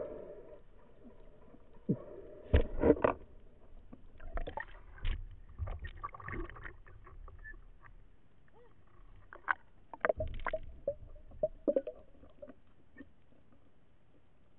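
Water sloshing and splashing around a camera held at the water's surface, with irregular clusters of knocks and bumps, loudest about three seconds in and again around ten to twelve seconds in.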